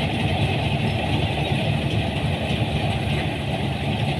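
A combine harvester's diesel engine running steadily at close range.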